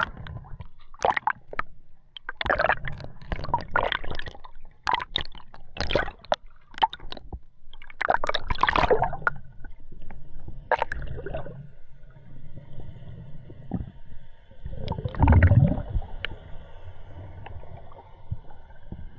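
Water splashing and gurgling in irregular bursts, with one loud splash about fifteen seconds in. From about eleven seconds on there is a steady background hum with several high whining tones.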